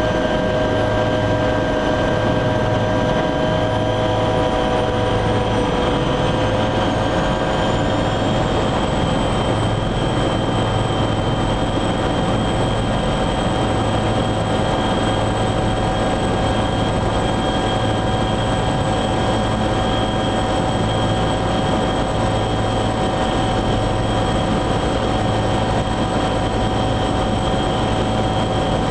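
Helicopter turbine engine and rotor running steadily, heard inside the cabin, a high whine over a low, pulsing drone. About six seconds in, the whine climbs a little in pitch and then holds.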